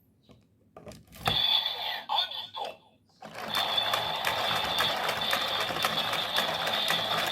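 Electronic toy transformation belt: a click and a short burst of its electronic sound effects about a second in, then from about three seconds in a fast, steady run of ratcheting clicks over a sustained electronic tone, as its lever is cranked.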